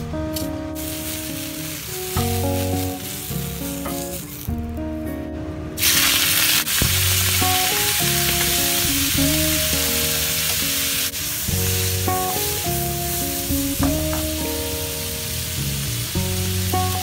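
Sliced squid frying in a hot oiled pan: a loud sizzle that starts suddenly about six seconds in, as the squid goes into the pan, and keeps going while it is stirred. Background music plays throughout.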